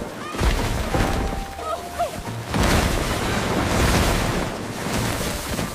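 Cartoon sound effects over background music: several loud rushing surges of noise with a deep low rumble under them, and a few short squeaky glides.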